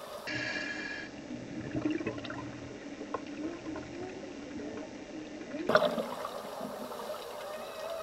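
Underwater scuba ambience: a diver's regulator exhaust bubbling in a louder surge about six seconds in, over a low steady hum and faint scattered clicks.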